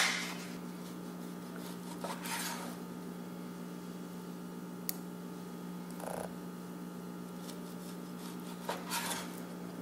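Cleaver slicing raw turkey breast on a wooden cutting board, with three faint knocks of the blade against the board spread through, over a steady low hum.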